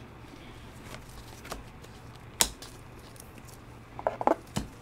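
Baseball trading cards being handled in gloved hands: a sharp click about halfway through, then a few quicker clicks and light rubbing near the end as cards are flipped and slid off the stack. A faint steady hum runs underneath.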